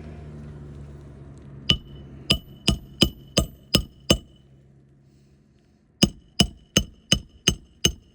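A hammer driving a roofing nail through an asphalt shingle into the roof decking, with two quick runs of about seven ringing blows each and a short pause between them.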